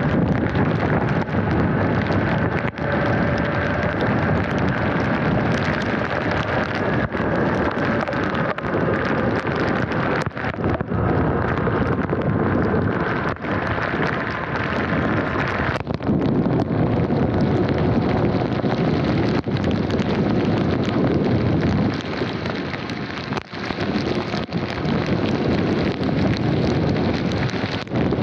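Loud, steady wind and rain rushing over the microphone of a Sur-Ron electric dirt bike riding at speed through pouring rain, with tyre hiss on the wet road. A faint whine drifts slightly up and down in pitch underneath.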